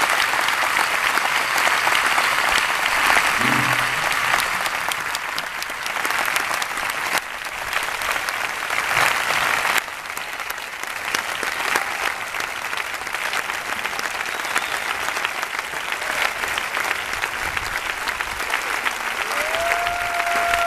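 A large audience applauding steadily after a concert piece. The clapping drops suddenly in level about ten seconds in, and near the end a steady high tone comes in over it.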